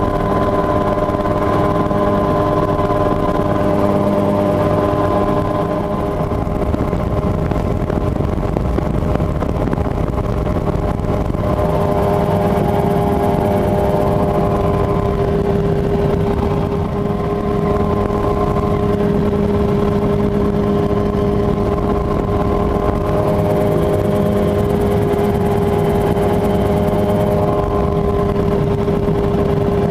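Mosquito XE ultralight helicopter in flight, its two-stroke engine running at a steady cruise setting with a constant drone.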